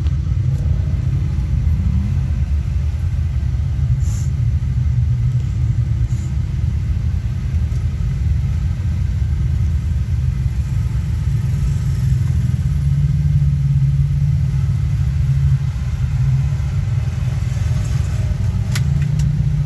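Polaris General XP4 1000 side-by-side's engine running at a steady idle, a constant low rumble heard from inside its cab.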